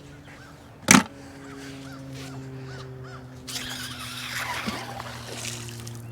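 A single sharp knock about a second in, over a steady low hum, then birds calling, harsher and louder in the second half.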